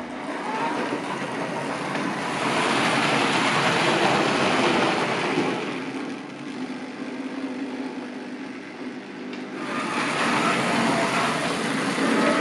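Analog Märklin H0 model train, a steam locomotive pulling a coach, rumbling and rattling along metal track. It grows louder as the locomotive passes close, dips, then swells again near the end as the coach goes by.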